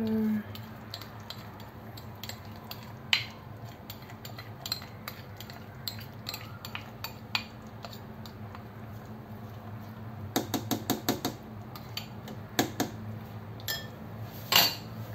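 A serving spoon scraping and tapping chopped coriander out of a bowl into a cooking pot. It makes scattered light clicks, then a quick run of taps about ten seconds in and a sharper knock near the end, over a low steady hum.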